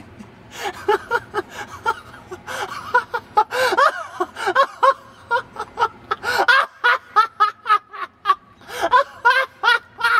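A person laughing: a long run of short snickers and giggles, one after another.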